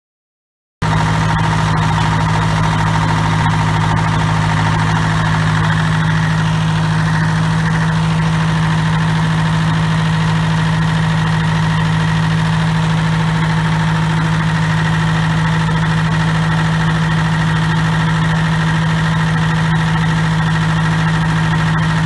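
Diesel engine of a small circular sawmill running steadily, with no let-up. The sound cuts in abruptly just under a second in.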